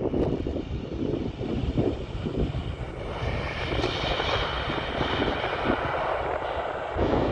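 Jet engines of a Boeing 767-300 freighter coming in to land, swelling from about three seconds in to a loud whining rush, over gusty wind buffeting the microphone.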